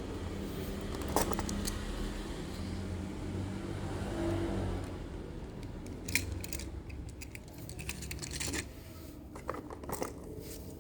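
Scattered clicks, taps and light rattles of small diecast toy trucks being handled, over a low steady hum.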